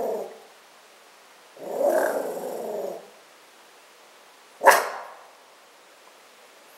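Poodle growling and barking: a growl trailing off at the start, a longer growl of over a second about two seconds in, then a single short, sharp bark near the middle.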